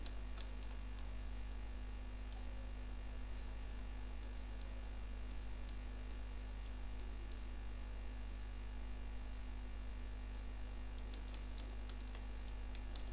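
Steady electrical mains hum on the recording, an even low drone, with a few faint clicks scattered through it, more of them near the end.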